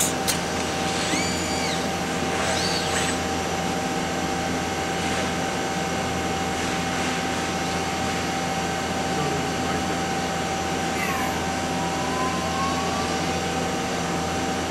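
Steady running noise of a robot-tended CNC lathe cell, a constant hum with one held tone. Short whines slide up and down in pitch about one and three seconds in, and a longer sliding whine comes near eleven seconds, as the Fanuc LR Mate 200iC robot arm's servo motors move.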